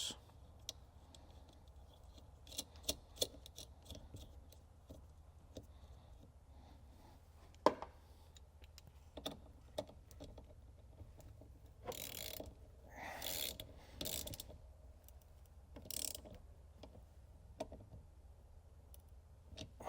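Ratchet wrench tightening a 10 mm nut down onto a wire's ring terminal: scattered light clicks, with a few longer runs of rapid ratcheting partway through.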